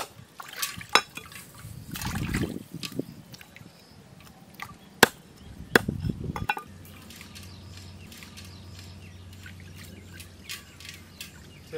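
Water being poured and splashed, with sharp knocks and clinks in between. About six and a half seconds in, this gives way to a steady low hum with a few faint clicks.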